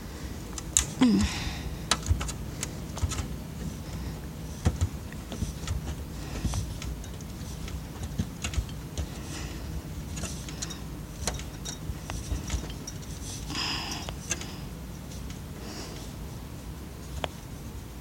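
Scattered light clicks, taps and rattles of hand tools and metal parts on an old TV's casing as a screw is worked loose, with a short rustle about fourteen seconds in.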